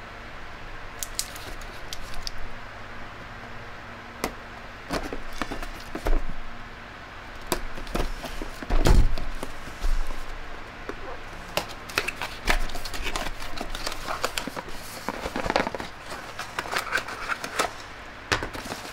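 Handling noises from a boxed hair curling and straightening iron: scattered clicks and knocks, the loudest about halfway through, then rustling of packaging toward the end, over a steady low electrical hum.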